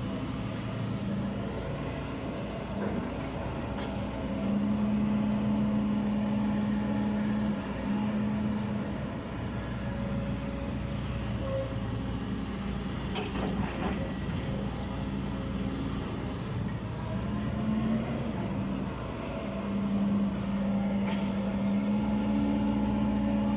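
Backhoe loader's diesel engine running steadily, louder and stronger twice as it works under load, with a faint regular ticking throughout.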